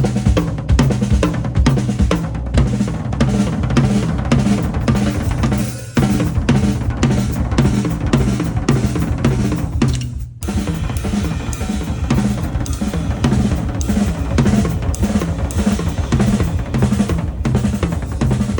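Drum kit played during a band sound check: bass drum, snare and cymbals in a fast, busy rhythm over a repeating low bass line. The playing breaks off for a moment about six seconds in and again about ten seconds in.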